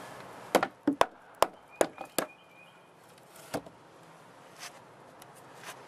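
Sharp knocks on the wood of a deck staircase as a board is knocked loose during demolition: about six quick blows in under two seconds, then one more a second later.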